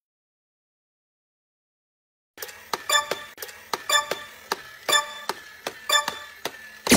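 Dead silence, then about two and a half seconds in a regular clock-like ticking starts, a little over two ticks a second, each tick with a slight ringing tone.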